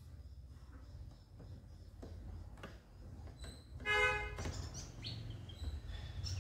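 Background ambience with a steady low rumble and short bird chirps, and a brief horn toot about four seconds in, which is the loudest sound.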